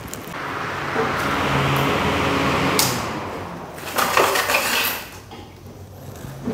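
Uncooked rice poured into a container: a steady pouring hiss for about three seconds, then a sharp click and a short clatter of handling about four seconds in.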